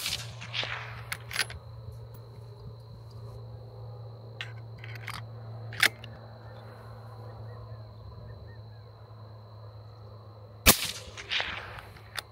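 Two shots from a suppressed 6.5 Creedmoor bolt-action rifle wearing an Airlock Industries Zero Gravity suppressor, one at the very start and one about ten and a half seconds later, each followed by echoes. Each shot measures about 128 dB(A) at the shooter's ear. Between the shots come the clicks of the bolt being worked.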